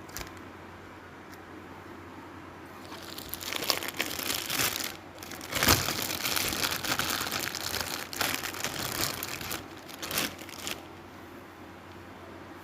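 Irregular crinkling and rustling, as of plastic or paper being handled, from about three seconds in until near the end, with the loudest crackle about halfway through.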